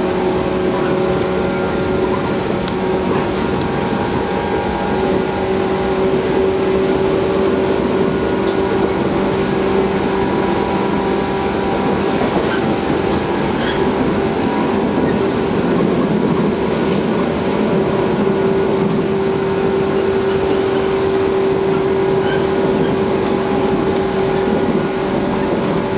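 Motor-car sound inside a JR West 115 series electric train running at steady speed: the traction motors and gearing give a steady hum of constant pitch over the rumble of the wheels on the rails.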